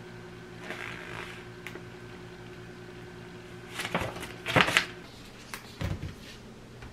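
Household objects being handled: a few soft clicks and rustles, then a cluster of sharp knocks and a dull thud about four to six seconds in, over a steady electrical hum.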